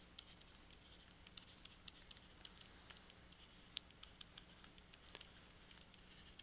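Faint tapping and scratching of a stylus writing on a tablet: many small, irregular clicks a few per second, over a faint steady low hum.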